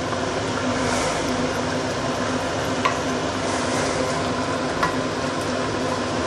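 Chicken curry boiling fast in a stainless steel wok, stirred with a wooden spatula, with two light clinks of the spatula against the pan about three and five seconds in.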